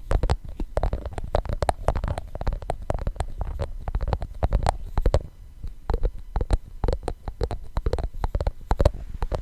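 Fingers tapping on a glass container, in rapid, irregular runs of close-miked taps with a full, deep thud under each.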